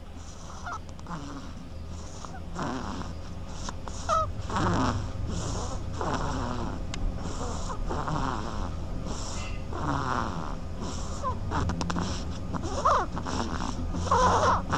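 An animal snoring in its sleep, a steady run of snoring breaths one after another.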